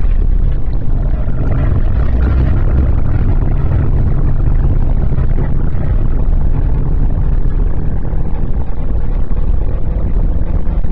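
Renault Clio 1.6 16v four-cylinder engine running under load at speed, heard from inside the car, with wind and road noise mixed in. It is a loud, steady drone.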